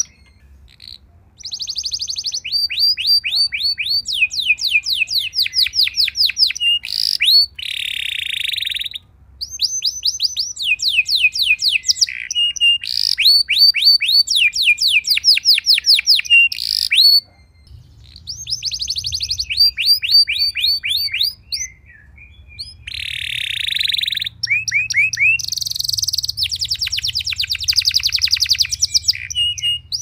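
Domestic canary singing a long song of rolling trills, each a fast run of quick repeated down-slurred notes, mixed with a few harsh buzzy phrases. The song breaks off briefly near the start and twice after the middle.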